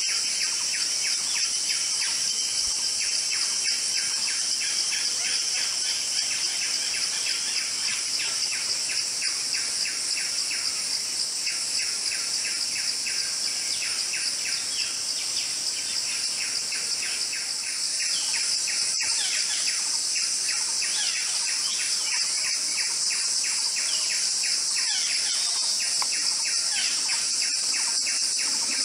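Forest ambience: a steady high-pitched drone of insects, with small birds chirping in quick, repeated short notes throughout. The insect sound gets slightly louder a little over halfway through.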